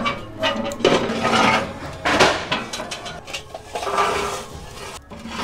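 Steel barrel charcoal grill lid being lifted open, then lit charcoal dumped from a chimney starter onto the grate: several bursts of metal clanking and coals clattering.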